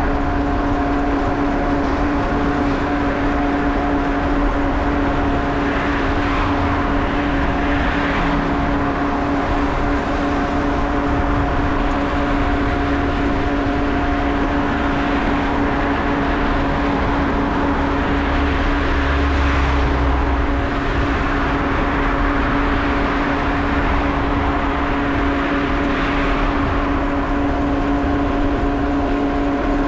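Steady rushing noise of wind and rolling tyres on a bicycle-mounted GoPro while cycling, with a constant low hum underneath.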